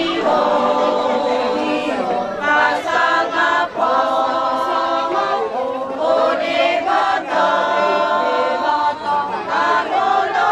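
A group of women singing together without accompaniment, in phrases of long held notes.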